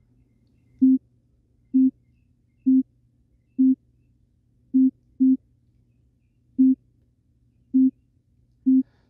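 Teenage Engineering TX-6 field mixer's built-in synth playing short, clean single-pitch beeps at C4, about one a second in an uneven rhythm, as it steps through different step-sequencer patterns. A faint steady low hum lies underneath.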